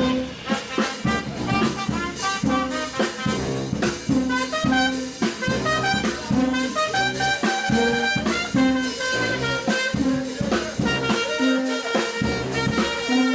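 Live brass band playing an upbeat jazz tune: trumpet lead lines over a sousaphone bass line of short low notes every half second or so, with a drum kit keeping time.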